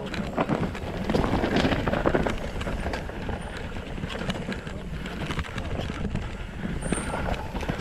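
Wind buffeting a helmet camera's microphone over the rattle and tyre rumble of a mountain bike descending a dirt trail at race speed. Spectators' voices come through briefly in the first couple of seconds.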